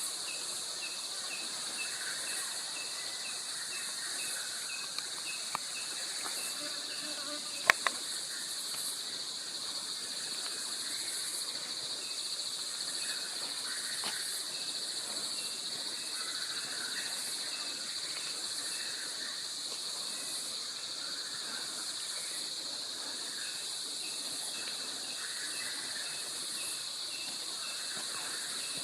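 Forest insect chorus: a steady, high-pitched shrill drone with a fast, even pulsing chirp running beneath it. A pair of sharp clicks comes about eight seconds in.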